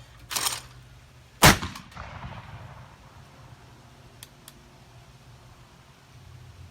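A single shot from a 12-gauge black-powder muzzleloading shotgun, sharp and loud about a second and a half in, with a rumbling tail that dies away over about a second. A brief rushing sound comes just before the shot, and two faint clicks come a few seconds after it.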